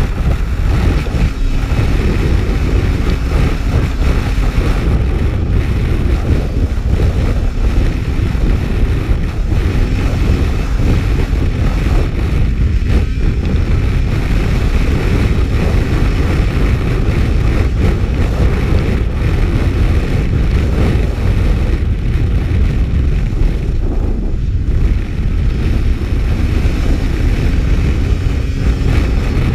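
Snowmobile running steadily at speed across lake ice, its engine drone buried in a loud rumble of wind on the microphone.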